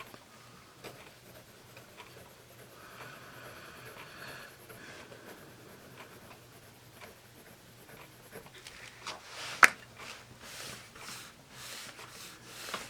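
Pentel Graph Gear 500 mechanical pencil with 0.7 mm lead writing on paper: a faint scratching. In the last few seconds come louder rubbing strokes across the paper, about two a second, with one sharp tap about ten seconds in.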